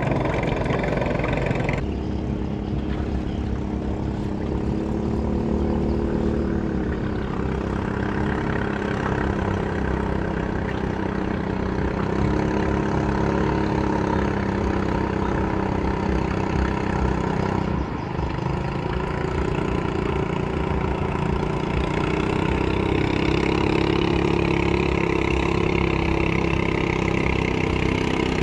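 An engine running steadily, its hum drifting a little up and down in pitch, with abrupt breaks about two seconds in and again near eighteen seconds.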